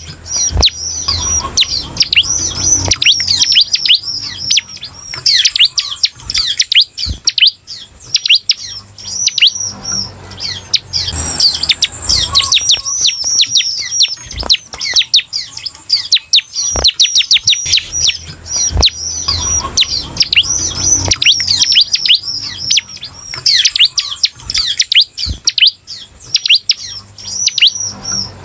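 Bar-winged prinia (ciblek) singing: a fast, near-continuous run of high, sharp downslurred notes with a few brief pauses. A few short knocks are heard among the notes.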